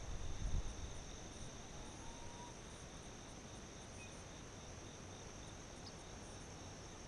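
Faint, steady high-pitched chirring of insects, two trills at different pitches, one slightly pulsing, held without a break. A low rumble fades out in the first second.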